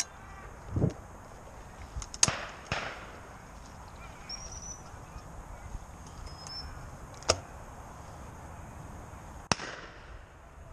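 Shotgun shots: four sharp reports, each with a short echo, two about half a second apart some two seconds in, then single shots about seven and about nine and a half seconds in.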